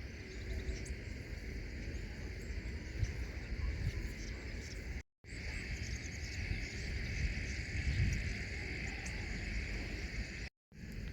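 Steady insect chorus, a continuous high drone like crickets, over a low rumble; the sound cuts out briefly twice.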